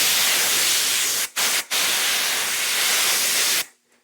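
Compressed-air duster can spraying into a fire alarm detector to blow it out after it was set off in the test: a loud hiss in three blasts, a long one, a very short one, and another long one, stopping suddenly a little before the end.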